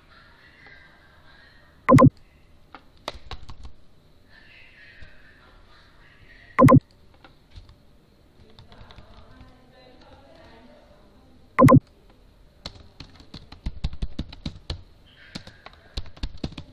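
Typing on a computer keyboard: scattered key clicks, then a quick run of keystrokes in the last few seconds. Three loud, brief thumps stand out, spaced a few seconds apart.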